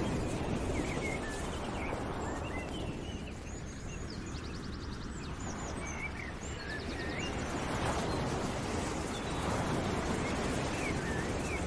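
Small birds chirping and trilling over a steady rushing outdoor ambience that slowly swells and fades.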